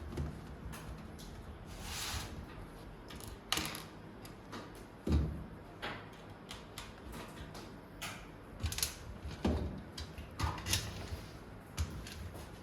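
Parts of a DVR rack being handled and fitted together: scattered clicks, short scrapes and knocks, with two louder thumps about five and nine and a half seconds in.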